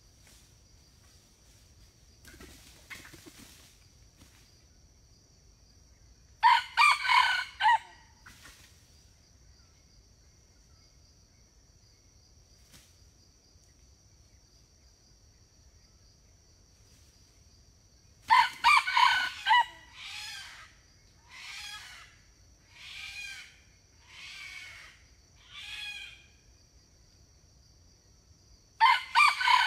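Red junglefowl rooster crowing three times, short clipped crows. The second crow is followed by a run of five quieter calls about a second and a half apart. A steady high insect drone runs underneath.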